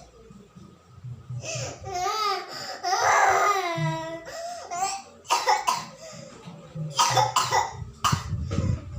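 A small child with a flu cough crying in a wavering voice, then coughing in a quick run of short coughs.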